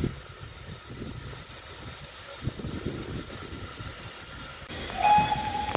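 LNER A4 Pacific steam locomotive rolling slowly past, a low uneven rumble. About five seconds in it gets louder and a steady high tone begins.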